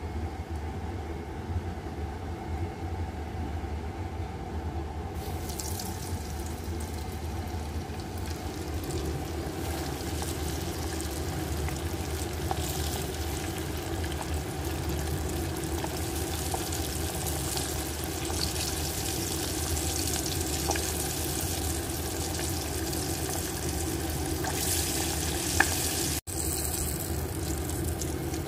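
Flour-coated chicken wings deep-frying in hot oil in a steel pot: a dense sizzling and crackling that starts about five seconds in, over a steady low hum.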